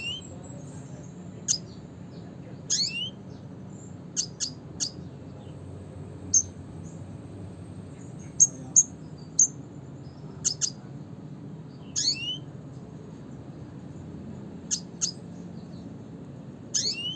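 Red siskin (Spinus cucullatus) calling: short, sharp high-pitched notes at irregular intervals, some in quick pairs and a few trailing down in pitch, over a faint low hum.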